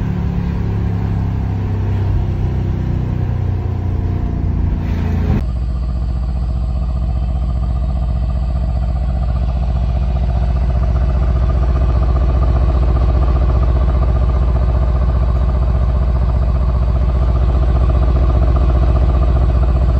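Mercedes-AMG GLC63 S Coupé's twin-turbo V8, heard from inside the cabin while driving for about five seconds. Then, after a cut, it idles steadily at the quad exhaust tips with an even, pulsing burble.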